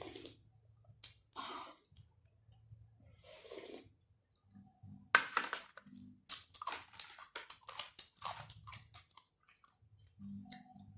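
Close-miked chewing of rice and boiled chicken, mukbang style. A few soft puffs early on give way, about five seconds in, to a run of quick wet clicks and smacks of the mouth.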